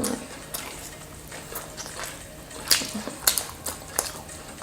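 People chewing pizza: soft wet mouth sounds with a few short clicks and smacks, the sharpest in the second half.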